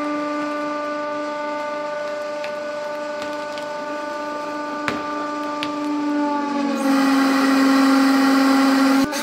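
Hydraulic press motor and pump humming steadily with a whine while the ram squeezes a mannequin head. Near the end the pitch drops slightly and a loud hiss joins in as the head is pressed flat, then both cut off suddenly.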